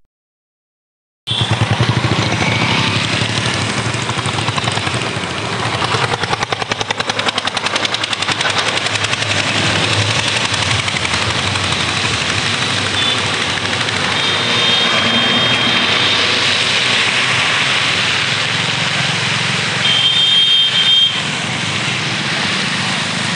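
Highway traffic noise with wind on the microphone, starting suddenly about a second in: a steady rushing din of passing vehicles. A horn sounds briefly about halfway through and again, louder, near the end.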